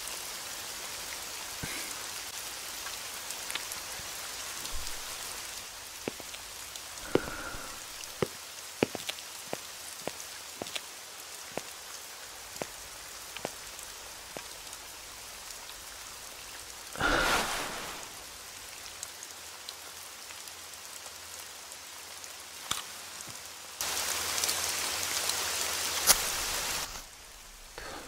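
Steady heavy rain falling, with scattered sharp drips and taps through it. About 17 seconds in there is a brief louder rush, and near the end the rain comes up louder for about three seconds before dropping back.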